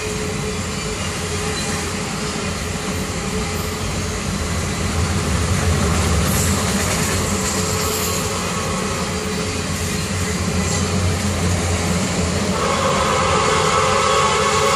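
Freight train of autorack cars rolling past with a steady rumble of wheels on rail. Near the end a train horn starts to sound and holds.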